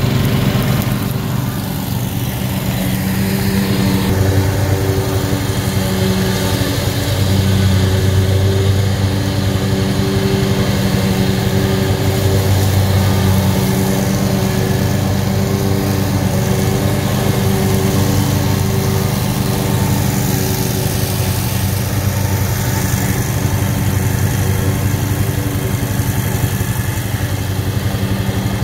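Small gasoline engine running steadily at an even pitch, with a few slight swells in level: the drone of mowing, with a zero-turn riding mower cutting grass.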